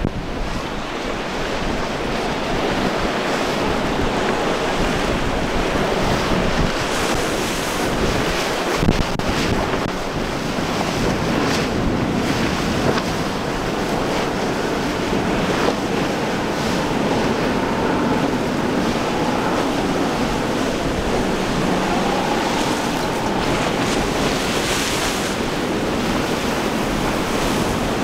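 Surf churning and wind buffeting the microphone, with a boat's Evinrude 200 outboard motor running beneath it, its faint wavering tone coming through in the second half.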